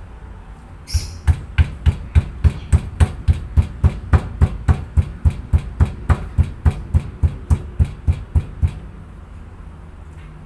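Stone mortar and pestle pounding: a steady run of dull, loud thuds about three and a half times a second, starting about a second in and stopping a couple of seconds before the end.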